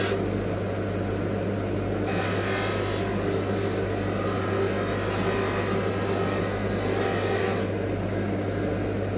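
Wire brush scrubbing rust off a steel planer blade: a continuous scratchy rasp over a steady hum. The brush's scratching is lighter in the first couple of seconds and again near the end.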